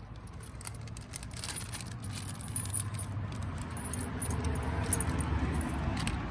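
Small metal fastener hardware (bolts, nuts and washers) clinking and jangling as it is handled, a scatter of little metallic clicks over a steady low rumble.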